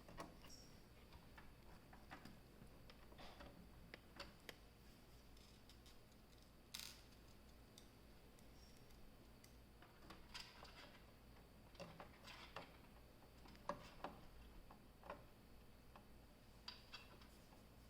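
Faint, irregular small clicks and ticks of screws being driven with a screwdriver into the case standoffs to fasten a motherboard.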